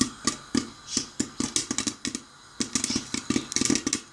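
Popcorn kernels popping in a covered pot: a fast, irregular run of sharp pops, several a second, with a short lull about two seconds in. The popping is at its peak, with enough popcorn to nearly lift the lid.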